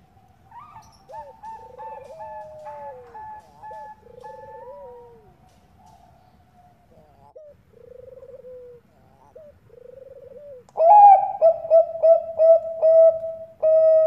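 Zebra doves (Thai-bred perkutut bangkok) cooing. Softer overlapping rolling coos at first, then, about eleven seconds in, a loud run of quick staccato coo notes ending in a longer held note.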